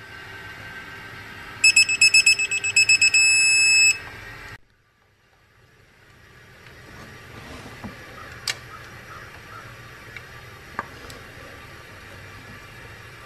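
Electronic beeping from a digital torque wrench: a run of quick high beeps that runs into a steady tone for about a second, the wrench's signal that the set torque has been reached, then stops abruptly. After it, a few faint clicks of tools on metal.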